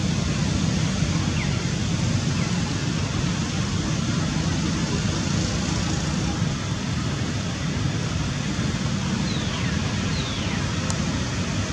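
Steady outdoor background rumble and hiss. Two faint high whistles slide downward near the end.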